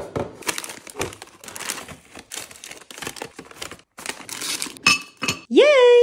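Small foil bags of chips crinkling and rustling as they are piled into a ceramic bowl, with sharp clinks of the bowl, one ringing briefly near the end. A short rising vocal exclamation closes it.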